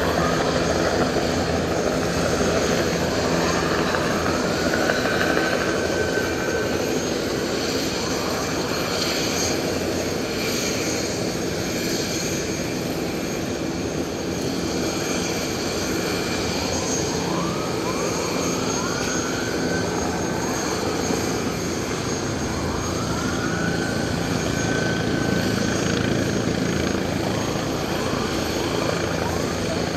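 Helicopter running overhead with a steady engine drone, over a constant rush of wind and choppy water. Three times, a short run of high rising calls sounds above it.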